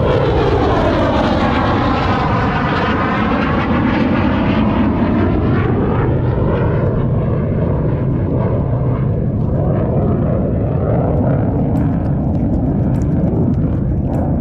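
Loud engine noise of a low-flying aircraft passing overhead. Its sound sweeps down and back up as it passes, then turns duller over the last several seconds.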